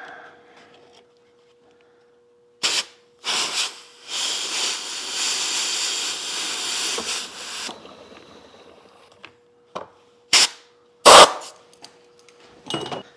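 Compressed air blown back through a small engine's fuel line to clear a clogged fuel pickup: two short blasts, then a steady hiss of about four seconds that fades away. A few sharp clicks follow near the end.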